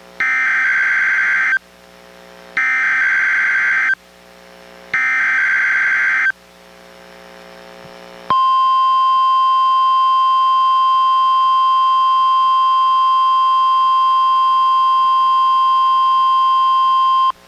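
NOAA Weather Radio test signal. First come three bursts of SAME digital header data, each a harsh warbling buzz about a second and a half long. After a short pause comes the steady 1050 Hz warning alarm tone, a single loud unbroken note held for about nine seconds.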